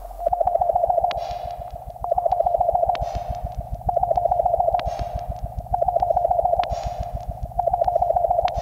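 Looped electronic sound piece. A mid-pitched tone pulses rapidly in swells that rise and fade about every two seconds, five times, over a fast, even low ticking.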